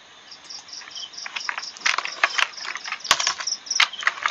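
Computer keyboard keys clicking in irregular taps as text is typed, the taps coming more often in the second half. Behind them insects chirp in a high, even pulse of about four chirps a second.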